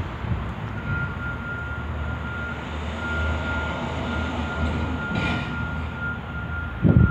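Steady low outdoor rumble of background noise, with a faint steady high-pitched whine from about a second in. A loud low buffeting hits the microphone near the end.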